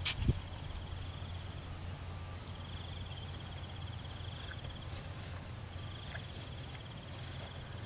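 Insects trilling in a rice field: a fast pulsing trill that comes and goes in three stretches over a steady high buzz, with a steady low hum underneath. Two short knocks sound right at the start.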